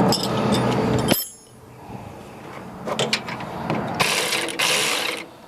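Ratchet wrench working a shock mounting nut, a dense run of rapid clicks that stops suddenly about a second in, followed by scattered metal clicks and a short hiss near the end.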